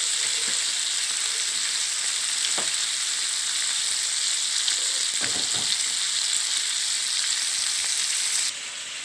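Battered squid deep-frying in hot oil in a wok: a steady sizzle of bubbling oil as the batter fries toward golden and crisp. The sizzle cuts off suddenly near the end.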